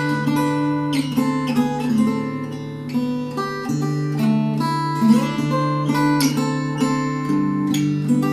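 K.Yairi MYT-1 compact acoustic guitar (solid cedar top, mahogany back and sides) played fingerstyle: held bass notes ring under a plucked melody.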